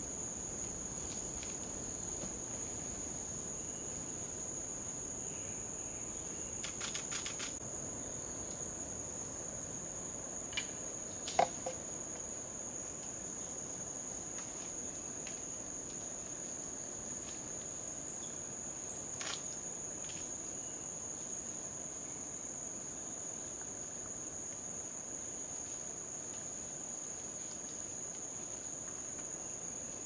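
Steady high-pitched drone of forest insects, two pitches held without a break. A few sharp clicks cut through it: a short rattle of clicks about seven seconds in, the loudest single click about eleven seconds in, and another near nineteen seconds.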